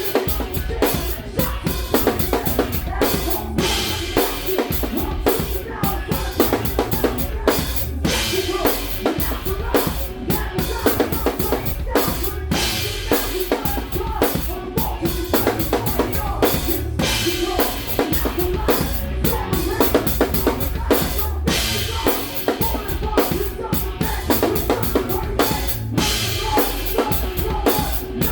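A live rock band playing a heavy song, with the drum kit's kick and snare driving a steady beat under loud guitars and bass.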